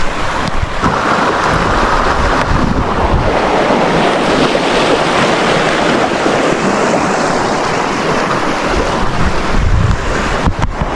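Wind buffeting the microphone: a steady rushing noise with uneven low rumbles that swell near the end.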